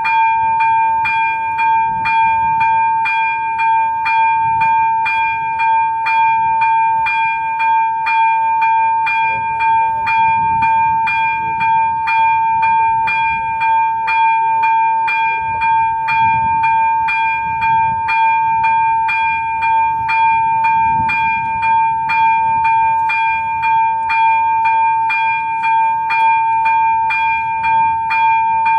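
Level-crossing electronic warning bell (ZV-02) ringing steadily with a rapid, even ding of about two strikes a second over a held high tone: the crossing's signal that a train is approaching.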